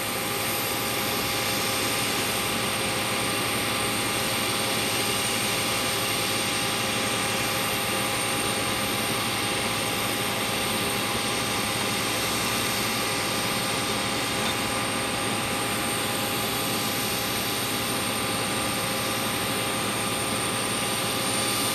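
Parked Boeing 737's auxiliary power unit running: a steady rushing hiss with several constant whining tones.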